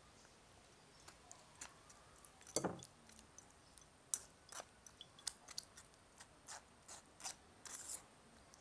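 Faint, irregular clicks and taps of kitchen utensils against a bowl as soaked tamarind pulp is worked to draw off its liquid, with one louder knock about two and a half seconds in.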